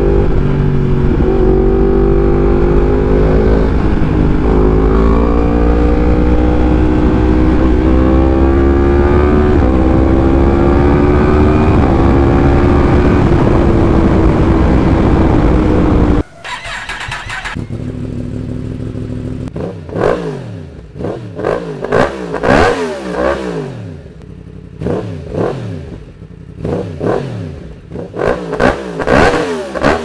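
2019 Yamaha MT-10's crossplane inline-four with an Akrapovic exhaust, under hard acceleration with wind on the microphone, its pitch climbing in steps through several gear changes. After a sudden cut it idles briefly, then is revved in short throttle blips again and again, each rising and falling sharply.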